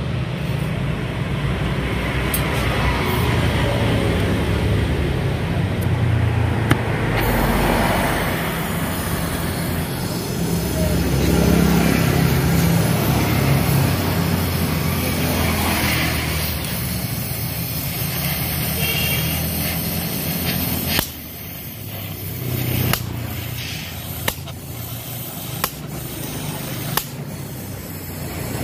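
Road traffic rumbling steadily, with a vehicle's low engine noise that fades away about three-quarters of the way through. A handful of sharp clicks follow near the end.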